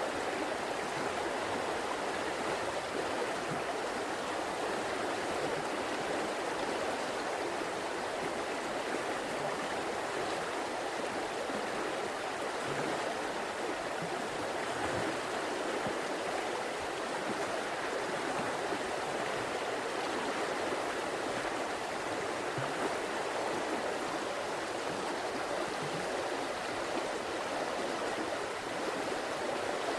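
River water flowing steadily over rocks, an even rushing babble.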